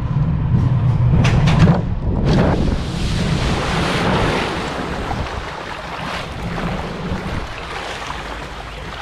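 Sunkid Nautic Jet boat rumbling down its metal slide chute, with wind on the microphone, then splashing into the pool about two seconds in. Water rushes loudly around the hull and slowly dies down as the boat glides across the pool.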